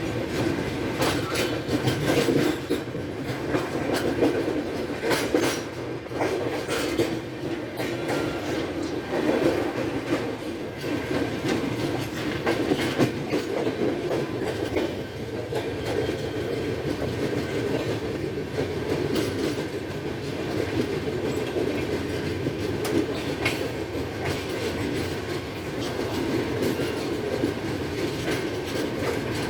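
Passenger train running with a steady rumble and irregular clattering of its wheels over the rail joints.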